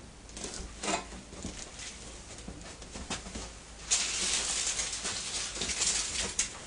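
Scuffing, scraping and light knocks from handling the parts of a galvanized steel trailer frame while people shuffle about. About four seconds in, the handling noise suddenly gets louder and busier.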